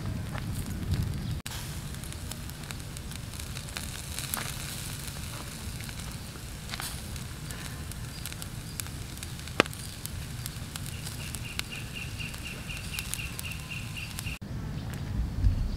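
Meat and fat sizzling on a wire grill over charcoal embers, with scattered crackles and pops and one sharper snap about ten seconds in.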